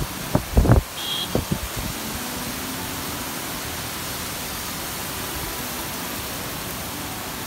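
Heavy rain pouring down in a steady hiss. A few low thumps come in the first second, followed by a brief high beep.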